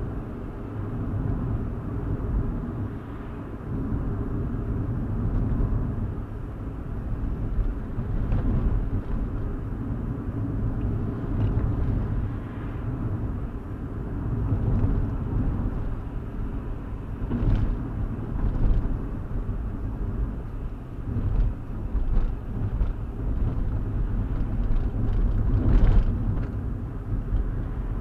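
Road and engine rumble of a 2015 Hyundai i20 driving steadily, heard from inside the cabin, with a few brief bumps, the strongest near the end.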